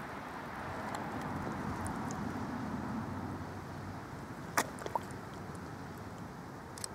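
Steady low background rumble, with one sharp click a little past halfway and a couple of fainter clicks after it.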